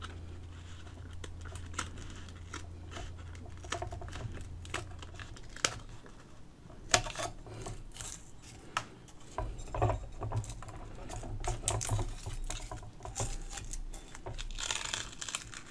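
Craft knife cutting through an old paper loudspeaker cone and masking tape: scattered small clicks, scratches and crinkles. Near the end the cut-off outer ring of cone is lifted away with a papery crinkling and tearing.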